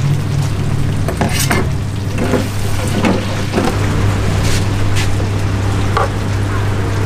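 Beaten egg sizzling in a nonstick frying pan, with several short clicks and scrapes of utensils and containers over a steady low hum.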